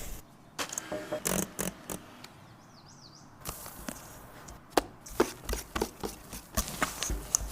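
Scattered clicks and light knocks of kitchen utensils and containers being handled during baking, with a quieter stretch in the middle and a run of sharper taps in the second half.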